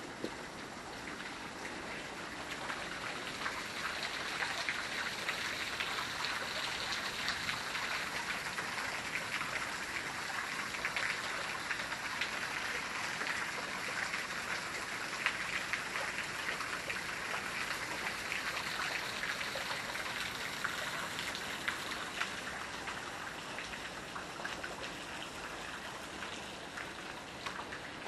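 A thin waterfall spattering into a small shallow pool: a steady splashing patter that grows louder over the first few seconds, holds through the middle and fades toward the end. The fall's flow is much reduced, so it is a thin stream rather than a full cascade.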